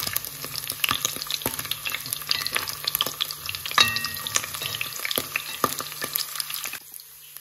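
Chunks of pre-boiled meat sizzling and crackling in hot oil in a granite-coated pot while a plastic spoon stirs them, knocking and scraping the pot. The meat is being browned. The sound drops in level near the end.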